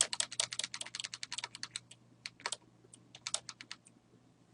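Typing on a computer keyboard: a quick run of key clicks, then a few short bursts of keystrokes that trail off.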